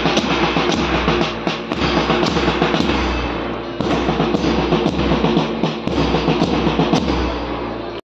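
Music with a steady beat on a bass drum and other drums.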